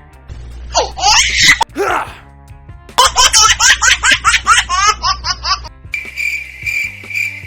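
Laughter over background music: a couple of drawn-out gliding calls about a second in, then a quick run of ha-ha-ha laughs, about five a second, followed by a high pulsing beep near the end.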